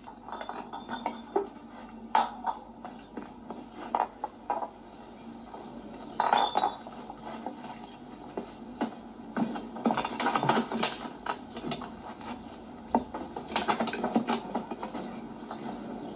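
Irregular clinking and clattering of glass and crockery, with a few sharper knocks among them.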